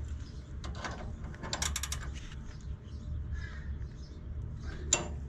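Hand ratchet wrench clicking in a quick run of about half a dozen clicks, then a single sharp metal click near the end, over a steady low hum.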